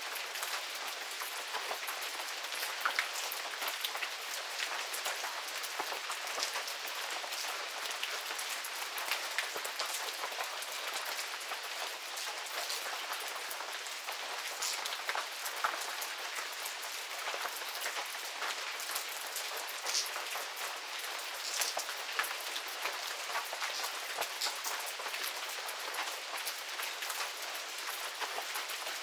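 Steady medium rain falling on surfaces, an even hiss with many distinct drops pattering throughout.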